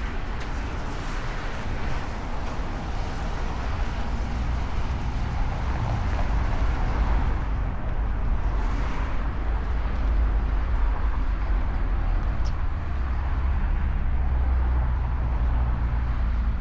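Road traffic noise: a steady low rumble with vehicles going past, one swelling and fading about eight seconds in.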